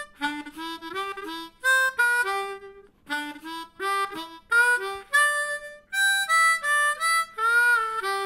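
Closing theme music: a lively melody played in short, separate notes grouped in phrases, with a long held note beginning near the end.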